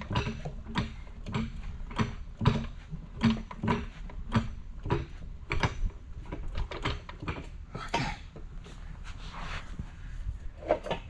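An uneven series of light clicks and knocks, about one or two a second, from an automatic transmission being shifted and balanced on a floor jack.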